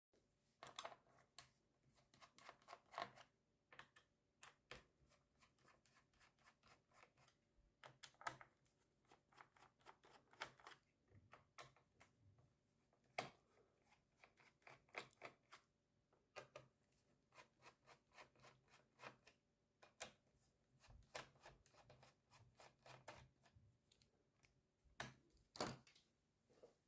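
Screwdriver working the screws out of a laptop's plastic bottom case: a run of faint, irregular clicks and ticks as the bit seats and turns, with a few sharper taps of metal on plastic.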